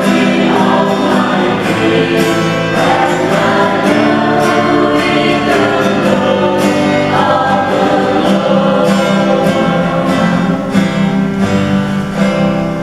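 Music: voices singing over an instrumental accompaniment, starting to fade near the end.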